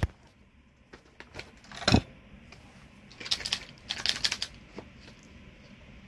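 Handling noise from a dropped phone: one sharp knock about two seconds in, then a run of light clicks and rattles.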